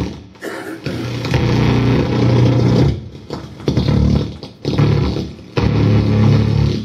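Loud distorted electric guitar played live through an amplifier, in stop-start blasts that cut off abruptly several times.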